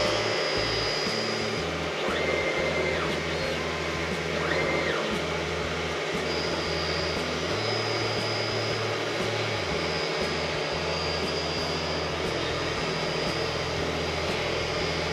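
Optical lens edging machine running, cutting a 1.74 high-index plastic lens with a steady motor-and-grinding noise. Two short tones rise, hold and fall about two and four and a half seconds in, and a thin high whine joins from about six seconds.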